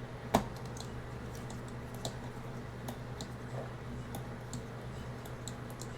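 Light clicks and taps of small case parts being handled and fitted into a mini PC, with one sharper click about a third of a second in and scattered faint ticks after it, over a low steady hum.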